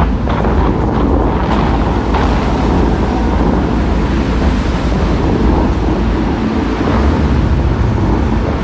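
The Dubai Fountain's water jets rushing and splashing back into the lake close by, a loud, steady noise of falling water with wind buffeting the microphone.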